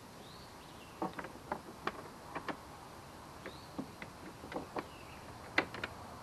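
Short, sharp clicks and taps, about a dozen scattered over several seconds, as a pedal-drive cartridge is seated and fitted by hand into the drive well of a Hammerhead Kayaks Bull Shark fishing kayak; the sharpest click comes near the end.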